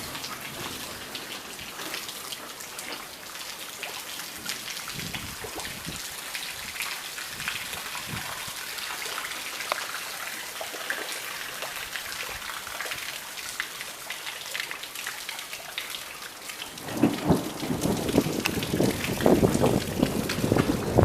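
Steady rain falling, a hiss with many fine drop ticks. About four seconds before the end, a louder low rumble of thunder sets in and swells.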